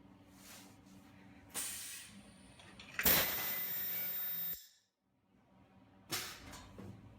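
Ultrasonic plastic welding machine running a cross-flow fan weld cycle: a short air hiss at about one and a half seconds, then a loud steady hiss with a faint whine that lasts about a second and a half and cuts off. Another short air hiss follows about a second and a half later.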